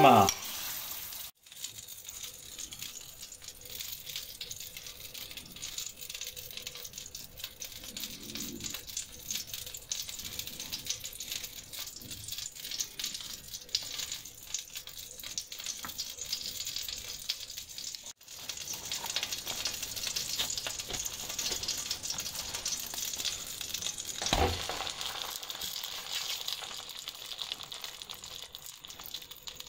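Oil sizzling in a frying pan with a steady crackling hiss, cut off for a moment twice. A single low knock about 24 seconds in.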